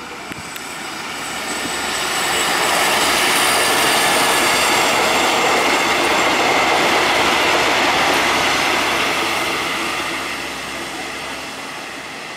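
A white multiple-unit passenger train passing close by on the rails, its wheels and running gear rumbling with a faint steady high whine through the noise. The sound builds over the first two seconds, holds loud for several seconds, then fades as the train moves away.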